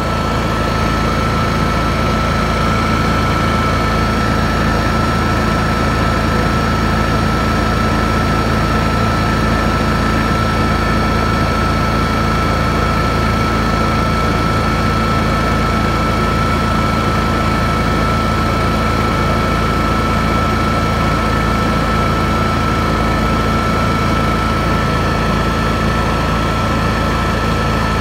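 Honda EU7000is inverter generator's single-cylinder engine running steadily under a light load of about 350 VA, with a steady high whine over the engine note.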